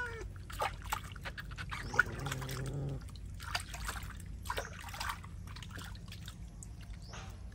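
Water splashing, sloshing and trickling in a plastic basin as hands scoop it over and rub a wet cat, in many short irregular splashes.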